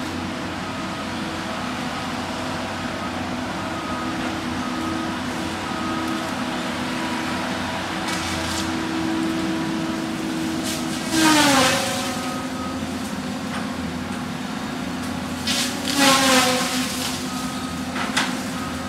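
Cat 573C tracked feller buncher running steadily. About 11 and 16 seconds in come two loud bursts, each with a whine falling in pitch as the saw head cuts through a tree and slows under the load, and a shorter burst comes near the end.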